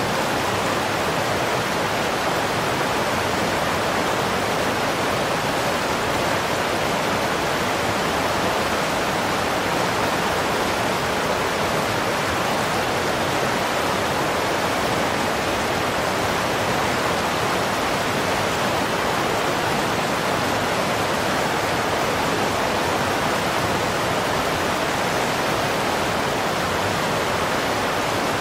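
Steady, unbroken rush of torrential floodwater, an even roar with no distinct events.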